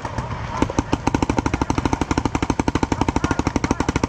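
Paintball marker firing a rapid stream of evenly spaced shots, about a dozen a second, starting about half a second in.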